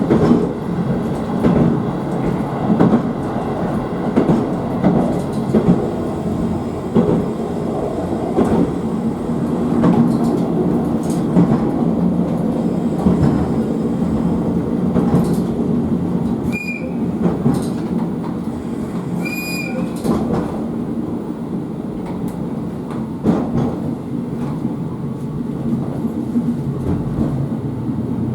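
KiHa 54 diesel railcar running along the line, its engine and wheels rumbling with rail-joint clicks. Two short, high whistle blasts sound about 17 and 19.5 seconds in, the train's warning whistle at deer on the track.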